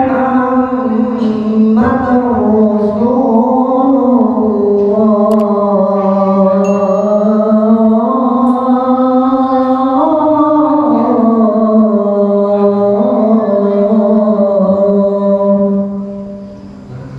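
A man's voice chanting the adhan, the call to the Maghrib prayer, into a microphone: one long, slowly wavering melodic phrase that fades out near the end.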